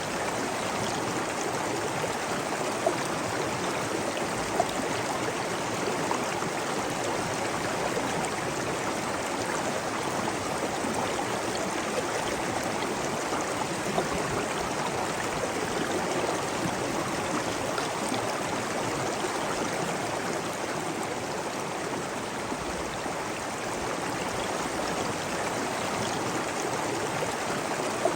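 Running water rushing steadily, like a stream or falling water, with a few brief sharper splashes standing out.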